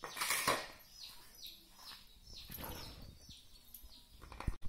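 Birds chirping in the background: a string of short, high, falling chirps, roughly one a second. A brief scraping or rustling noise just after the start is the loudest thing, and there is a low thump near the end.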